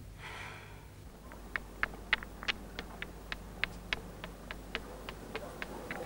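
Footsteps on a hard surface: a run of short, sharp clicks about three a second, starting about a second in.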